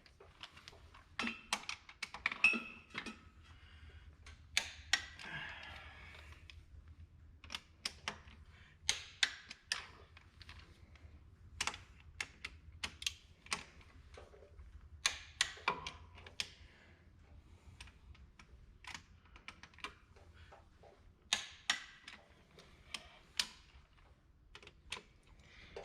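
Wrench clicking on bolts as they are gone over and double-checked for tightness: irregular sharp metallic clicks, some in quick clusters.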